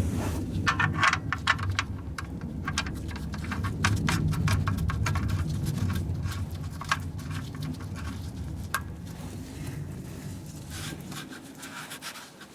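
Oil drain plug being threaded back into the oil pan and tightened with a wrench: a run of irregular small metal clicks and scrapes over a low rumble, thinning out after about nine seconds.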